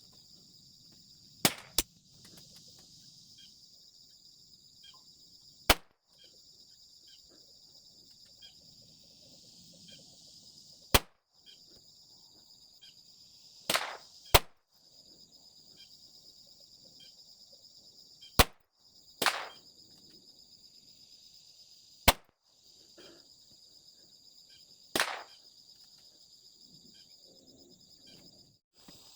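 Single .22LR pistol shots from a Smith & Wesson Victory fired from a bench, about ten sharp cracks a few seconds apart, some in quick pairs. A steady high-pitched insect chorus runs underneath.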